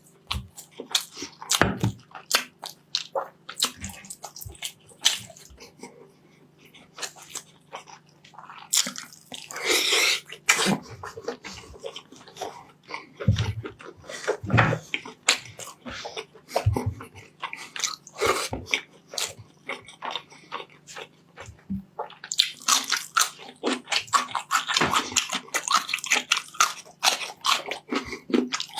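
Close-miked eating of rice and meat: wet chewing and mouth smacking, heard as many small clicks. There is a brief louder, wetter stretch about a third of the way in, and a longer dense run of chewing near the end.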